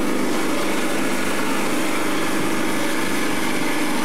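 Small boat's outboard motor running steadily at an even speed.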